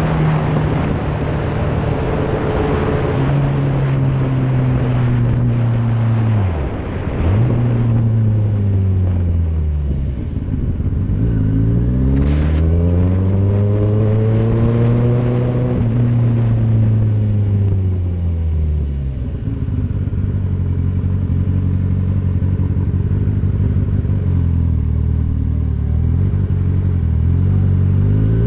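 Motorcycle engine running through a ride on wet streets, its pitch falling to a low idle about seven seconds in, climbing again, easing down until it holds low and steady, then rising near the end. A hiss sits over it for the first eight seconds or so.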